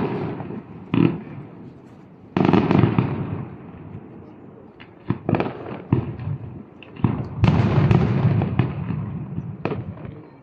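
Aerial fireworks shells bursting in a string of booms, each with a rolling echo. There are single bangs at the start and a second in, a longer volley a couple of seconds in, a quick cluster of sharp pops midway, and a sustained run of bursts from about seven seconds.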